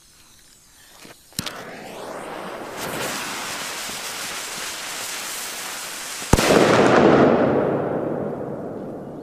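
El Gato Mascleta Manual firecracker: its long fuse hisses and sputters for about five seconds, then the cracker goes off with one sharp bang about six seconds in, followed by a loud rumble that fades over the next couple of seconds.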